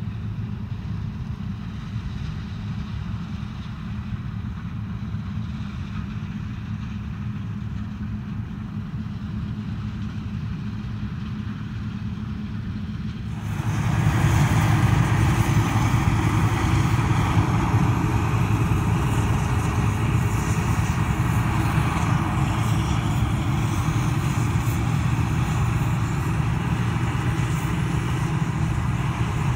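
Heavy diesel machinery running steadily with a low rumble. About 13 seconds in, it suddenly becomes much louder and fuller.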